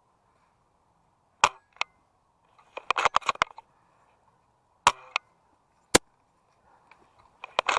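Airsoft gunfire: single sharp snaps, the loudest sounds, at irregular intervals, and two short bursts of rapid clicking about a second long.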